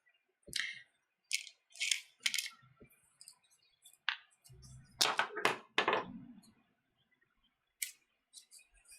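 Sharp little clicks and taps from a screwdriver, a tiny screw and an M.2 SSD being handled while the drive's retaining screw is taken out, with a louder cluster of taps about five seconds in.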